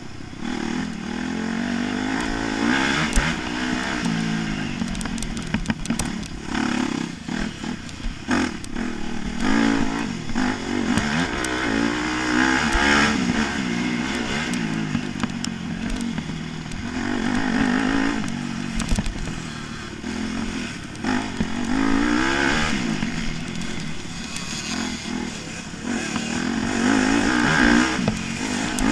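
Motocross dirt bike engine under hard riding, revving up and falling back again and again as the throttle is opened and closed through the corners and straights. Occasional sharp clicks and knocks sound over the engine.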